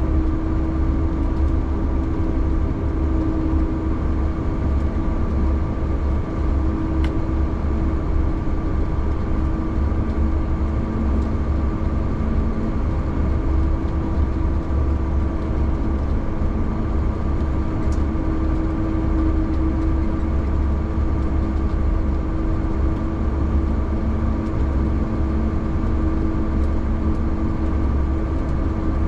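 Vehicle engine running steadily under way: a constant low rumble with a steady hum above it.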